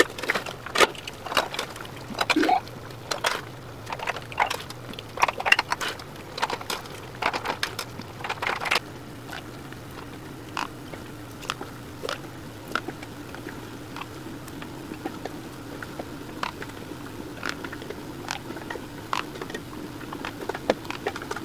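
Hot strawberry preserves being ladled through a plastic canning funnel into glass canning jars: quick clinks and taps of the ladle and funnel against the jars. The taps come thick and fast for the first nine seconds or so, then thin out to scattered ones over a faint steady hum.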